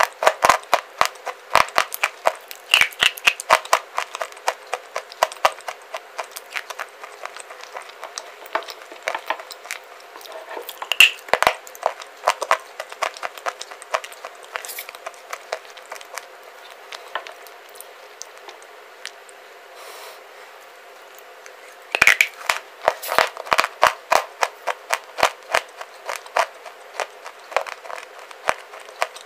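Dry clay bar being bitten and chewed close to the microphone: rapid runs of crisp cracks and crunches in bursts, with a short lull about two-thirds of the way through.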